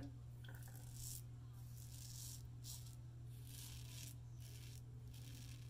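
Timeless double-edge safety razor with a scalloped head scraping through lathered stubble on the jaw and neck: short, faint, crackly strokes about once a second. A steady low hum lies underneath.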